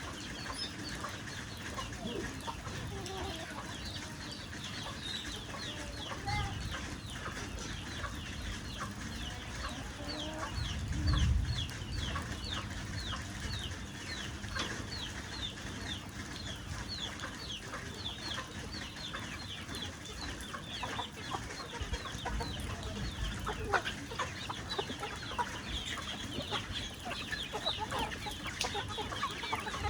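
Chickens clucking and calling, with many short, high, falling notes, over a steady hiss of rain. A brief low rumble about eleven seconds in is the loudest moment.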